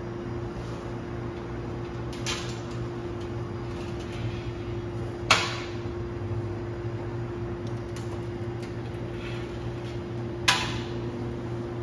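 A steady low electrical hum with three sharp knocks from parts or panels being handled, each ringing briefly; the loudest comes about halfway, another near the end.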